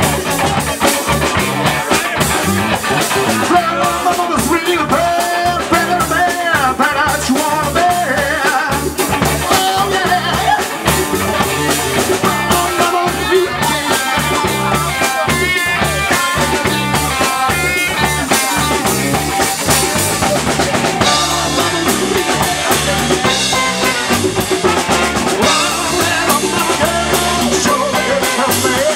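A live band playing with a steady drum-kit beat, electric guitar and bass guitar, and a horn section of trumpet and saxophones.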